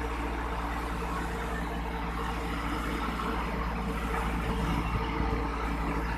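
Diesel engine of a pick-and-carry mobile crane running steadily while it handles a large steel pipe, getting a little louder after the middle.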